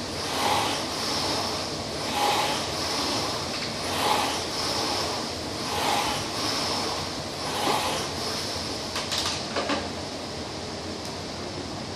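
Concept2 air-resistance rowing machine's fan flywheel whooshing with each drive stroke, a rhythmic surge about every second and three-quarters. The strokes stop about eight seconds in, a few clicks follow, and then a steady hiss remains.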